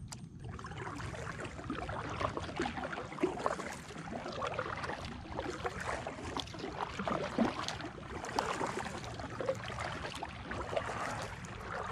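Kayak paddling: the double-bladed Pelican paddle dipping and pulling through calm lake water, with irregular splashing and dripping off the blades.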